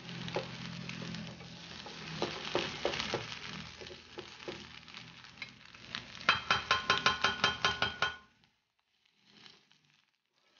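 Cabbage-and-carrot vegetable patty frying and sizzling in a nonstick pan, with scraping and clicks as a plastic spatula presses and shapes it. About six seconds in comes a quick run of ringing taps, about five a second for two seconds, and then the sizzling cuts off.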